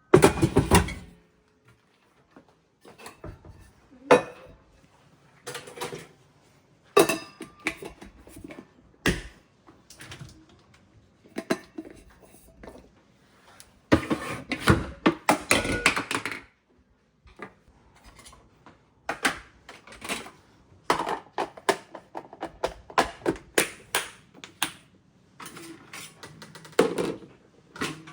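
Irregular knocks, clicks and clattering from objects being handled and set down, with a longer stretch of rustling and scraping about halfway through.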